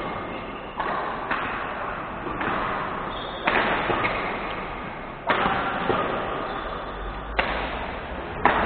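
Badminton rackets hitting the shuttlecock in a rally, about seven sharp hits at uneven gaps of one to two seconds, each ringing on in the sports hall's echo.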